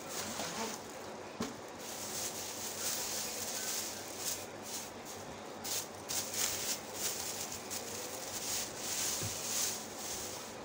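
Plastic wrapping crinkling and rustling in irregular bursts as a folded tripod stand is handled and unwrapped, with a few light knocks.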